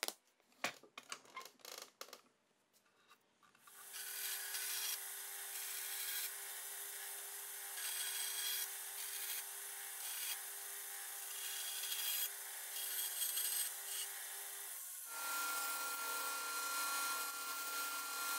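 A few knocks of a wooden board being handled, then a bandsaw running and cutting a curve into a solid black wattle board from about 4 s. About 15 s in, the sound switches to a disc sander grinding the rounded end grain, with a steady whine.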